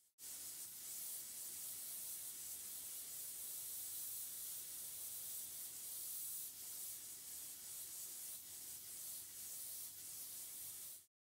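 Compressed air blowing out through a pop-up lawn sprinkler head as a steady hiss, spitting a fine mist of the water left in the line. This is the blowout that clears the zone before winter. The hiss stops abruptly near the end.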